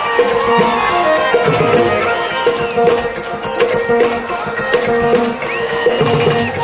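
Instrumental interlude of Punjabi folk music: tabla-style hand drums keep a steady rhythm under sustained melodic instrument lines.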